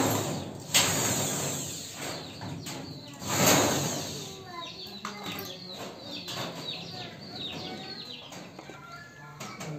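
Electric hand drill boring through thin zinc sheet metal in a few bursts over the first four seconds, each a rough grinding noise that fades as the bit runs through.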